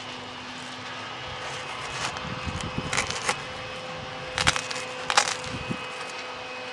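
Rustling and several short light knocks as the dust guard's fabric is handled and fitted against the UTV's plastic bodywork, over a faint steady hum.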